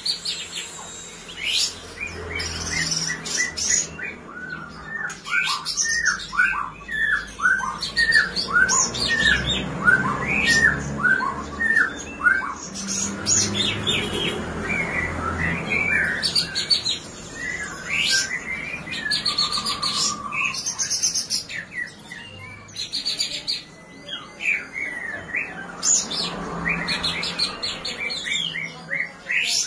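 A caged songbird singing a long, varied song: a quick run of repeated swooping notes, mixed with high, sharp chips and trills.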